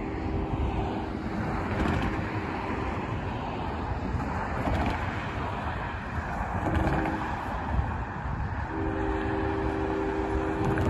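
Freight locomotive air horn sounding a long blast, a short one about seven seconds in, then another long blast, over the steady rumble of the approaching grain train. The long and short blasts fit the standard grade-crossing warning.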